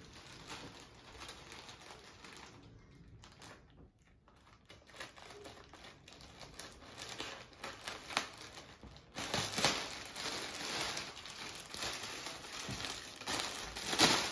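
Plastic packaging crinkling and rustling as a plastic courier mailer is opened and a saree in a clear plastic bag is taken out. It gets louder from about nine seconds in, with the loudest crinkle near the end.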